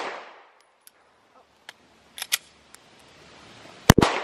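Handgun fired twice in quick succession near the end, the loudest sounds here, each shot ringing out briefly. Before that, a few quieter sharp clicks in the middle, and the fading echo of the previous shots at the start.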